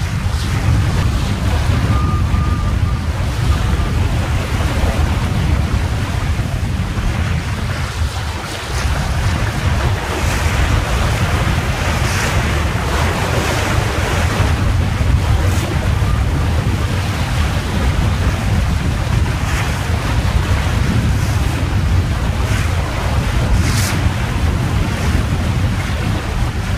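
Wind buffeting the microphone on a small trailer-sailer yacht under sail in a fresh breeze, with the rush and splash of water along the hull as it works through a choppy sea. The water's hiss swells for a few seconds around the middle.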